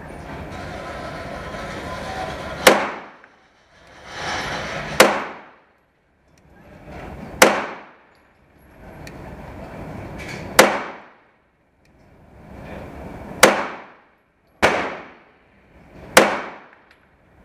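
Heckler & Koch P30 9mm pistol fired seven times in slow precision fire, single sharp shots mostly two to three seconds apart, with two closer together near the end.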